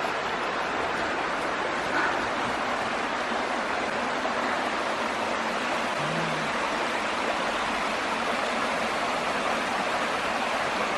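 Waterfall with a steady rush of water cascading down over rock.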